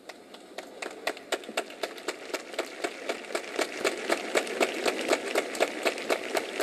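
Crowd applauding, with many sharp individual claps standing out and the clapping growing a little louder.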